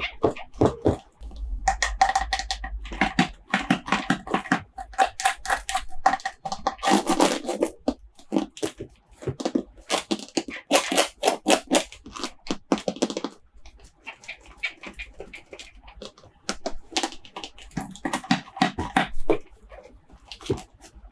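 Packaging and plastic toy dinosaurs being handled during an unboxing: quick, irregular clicks, taps and rustles.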